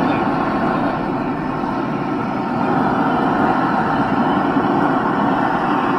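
Backyard forge running, a continuous even rushing noise while a knife blade heats in it.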